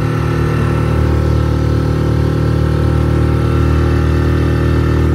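Mercury 6 hp outboard motor running steadily at full throttle, pushing a loaded inflatable dinghy that fails to get up on the plane; the owner suspects the motor needs a service.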